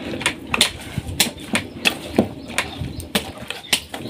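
A metal fork stirring a thick, grainy mixture in a stainless steel bowl, clicking and scraping against the bowl about three times a second.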